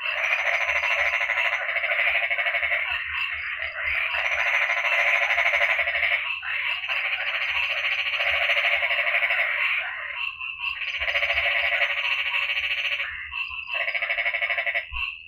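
A dense chorus of many frogs calling together, a fast pulsing trill that runs on with a few brief lulls in the last few seconds.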